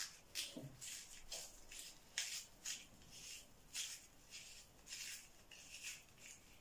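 A metal utensil scraping out the inside of a raw courgette piece to hollow it for stuffing: a run of short, faint, high scrapes, about two a second.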